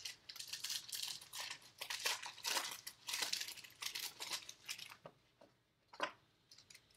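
Baseball card pack wrappers crinkling and tearing as packs are ripped open: a dense run of rustles for about five seconds, then one short crinkle near the end.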